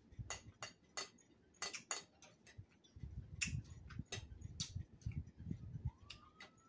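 Metal fork clicking and scraping against a plate, then chewing and mouth sounds close to the microphone for a few seconds.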